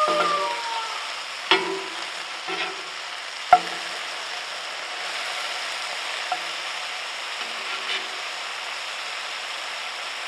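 Sausage patties sizzling steadily in a steel frying pan heated on a parabolic solar cooker, with two sharp clicks of the metal spatula against the pan in the first few seconds.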